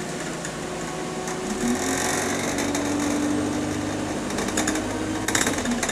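Bus engine pulling away: its note rises from about a second and a half in, then holds steady, with a brief hiss just after it picks up. Interior panels rattle in quick bursts near the end.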